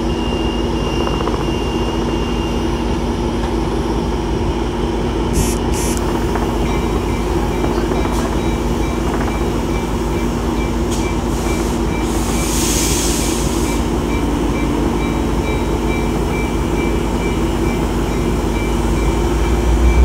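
Diesel passenger locomotive idling at a standing train, a steady low hum. A short hiss of air comes about two-thirds of the way through, and a faint high beeping runs through the second half.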